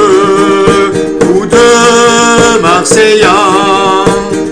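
A man sings a drawn-out line over a few long held notes, accompanied by a strummed acoustic guitar.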